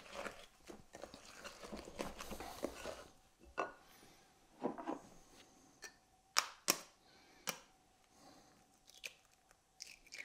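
Wooden spoon stirring thick cake batter in a ceramic bowl for about three seconds, then several sharp taps as an egg is cracked open.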